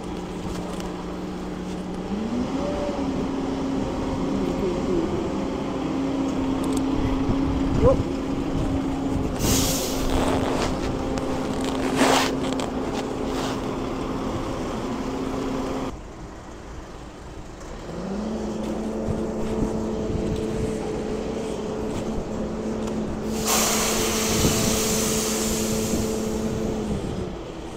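Engine of a mobile boat hoist (travel lift) running under load while it carries a narrowboat. It revs up about two seconds in and runs steadily, drops away around the middle, then revs up again and runs steadily until it winds down near the end. A few short gusts of hissing noise come over it.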